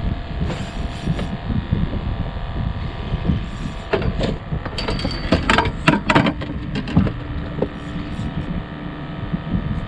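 Steady wind and water noise on a small open boat, with a quick run of sharp clicks and knocks about four to six seconds in.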